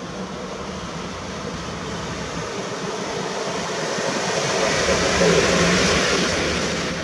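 201Eo (ET22-class) electric locomotive hauling a Newag Griffin locomotive, approaching and passing close by: rumble of wheels on rails with a steady low hum, growing louder and loudest about five seconds in.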